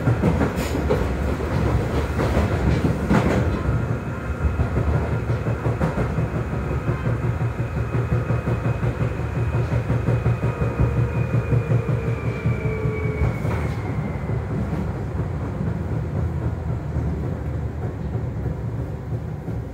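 Seibu 2000-series electric train with field-chopper control running, heard from inside a motor car. There is a steady wheel-and-rail rumble and a few rail-joint knocks. Partway through, a thin motor whine falls in pitch as the train slows.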